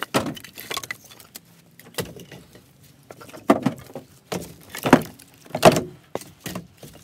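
Split firewood logs knocking and clattering against each other as they are handled and stacked: a string of sharp wooden clunks, the three loudest in the second half.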